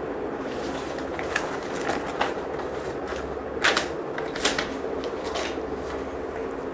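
Steady background hum with about five short, soft rustles and clicks of handling, the loudest a little past the middle.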